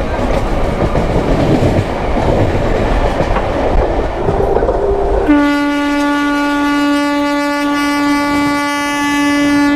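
Electric local train running along the track with a steady noise of wheels and carriage. About five seconds in, a train horn sounds one long, steady, unbroken blast, louder than the running noise, lasting to the end.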